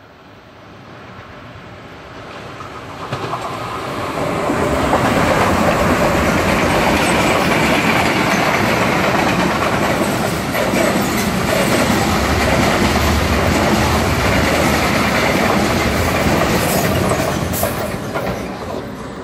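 Freight train of covered wagons, hauled by an electric locomotive, approaching and passing close by, with wheels rumbling and clacking on the rails. It grows louder over the first five seconds, holds steady while the wagons roll past, and eases off near the end.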